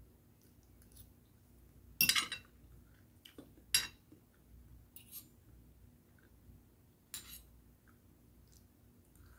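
Spoon and fork clinking and scraping against a plate while eating, a handful of separate clinks, the loudest about two seconds in.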